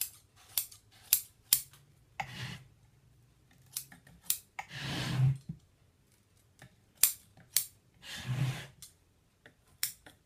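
Upholstery scissors snipping away excess batting from a padded chair seat: a run of short, sharp snips, broken by three longer rustling swishes as the blades shear through thicker batting.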